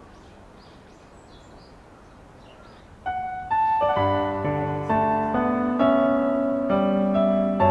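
Background piano music that starts about three seconds in, with single notes and chords at a gentle pace. Before it there is a low, quiet stretch with a few faint high chirps.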